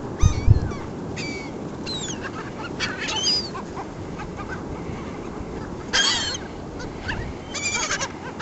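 Seagulls calling: scattered short squawks and cries, the loudest clusters about six seconds in and near the end, over a steady background rush. A few low thumps of wind on the microphone at the start.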